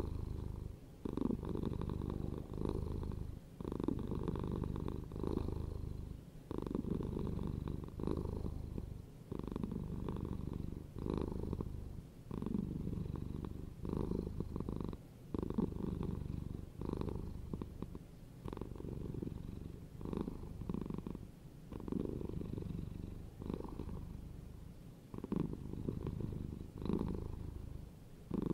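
Domestic cat purring close up, a low rumble that swells and eases with each breath about once a second.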